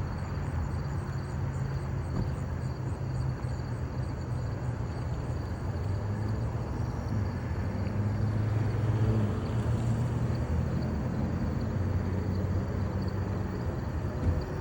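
A motor running steadily with a low hum, its pitch and loudness rising a little about eight seconds in.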